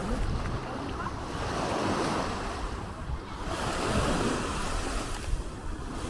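Small waves breaking and washing up the sand at the water's edge, the surf rising and falling, with wind buffeting the microphone.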